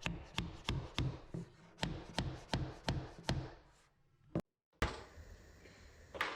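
A hammer knocking on a wooden block, at about three strikes a second, to drive a laminate countertop backsplash down into its wall clips. The run stops about three and a half seconds in, and a few single knocks follow.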